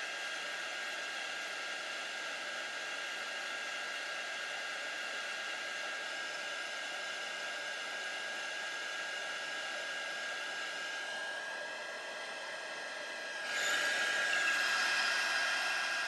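Craft heat gun running steadily, a fan whir with a thin steady whine, blowing hot air onto shrink plastic to shrink it. About three-quarters of the way through it grows louder.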